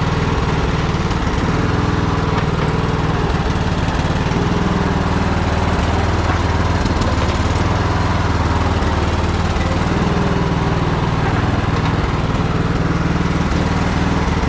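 Troy-Bilt Bronco riding tractor's engine running steadily at an even speed on old gas.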